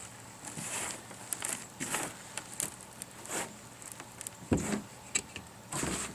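Hands digging and sifting through loose soil from a dumped potato grow bag: scattered rustling scrapes, with one dull thump a little past the middle.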